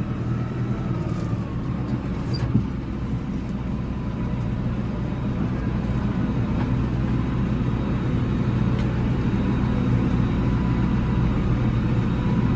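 Massey Ferguson 5711 tractor engine running steadily, getting gradually louder, with one sharp knock about two and a half seconds in.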